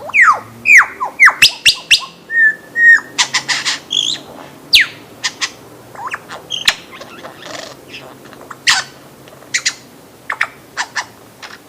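Lyrebird singing: a varied run of loud falling whistles, sharp clicks and snapping notes, with a short held whistle and quick rattling trills.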